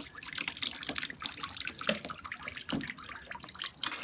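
Water draining from wet paper-and-sawdust pulp through a perforated steel briquette-press cylinder, dripping and splashing irregularly into the tub below.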